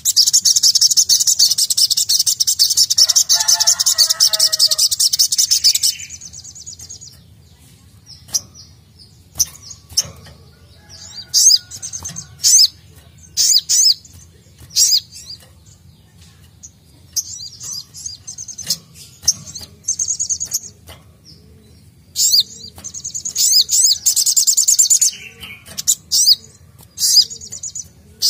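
Male sogok ontong (sogon) sunbird singing: a long, rapid, high trill for about six seconds, then scattered sharp chirps, and a second long trill near the end.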